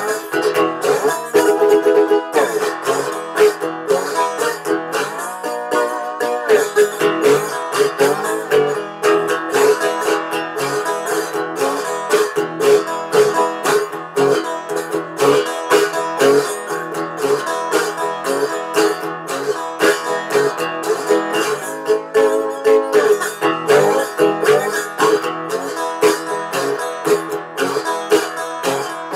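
Metal-bodied resonator guitar played solo, plucked notes with several glides up and down in pitch between them.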